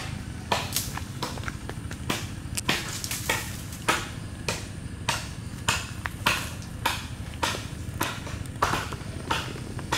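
Steady chopping, a sharp knock about every 0.6 seconds, the even rhythm of a blade or axe striking wood.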